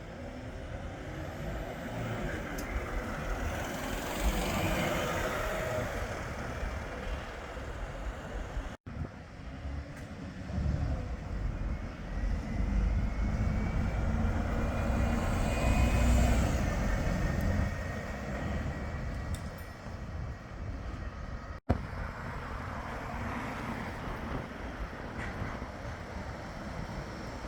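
Bombardier Flexity 2 trams and road traffic passing on a town street, with an electric whine that rises and then falls in the middle stretch. The sound breaks off abruptly twice, at about nine and about twenty-two seconds in.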